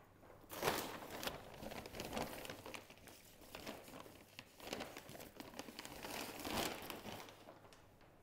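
Plastic bag of potting mix crinkling and rustling as it is handled and the mix is scooped out, in several uneven bursts over about seven seconds.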